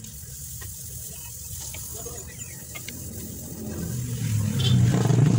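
Faint small metallic clicks of pliers working on drum brake hardware, then a motor vehicle's engine grows loud near the end with a steady low hum.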